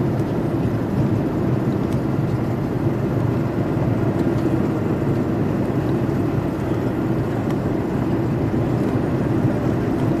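Steady jet airliner cabin noise during descent: the engines and rushing air, heard inside the cabin by a window beside the engine, a low, even rumble without change.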